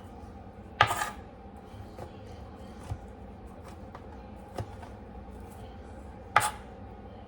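Knife knocking on a cutting board while cutting up baked chicken breast: two loud sharp knocks, about a second in and near the end, with a few faint taps between.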